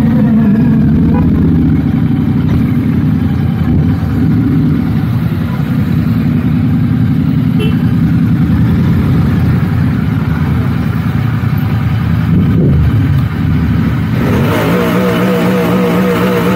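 Royal Enfield 650's 648 cc parallel-twin engine running under light throttle as the motorcycle rolls slowly through traffic. About fourteen seconds in it settles to a steady idle as the bike pulls up and stops.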